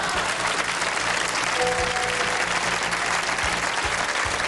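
Studio audience applauding, with music playing underneath.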